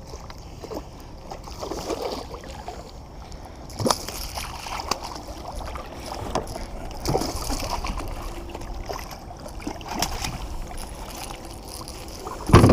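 Light water splashing and scattered knocks against a kayak hull, with a few sharp clicks, while a hooked fish is landed beside the boat.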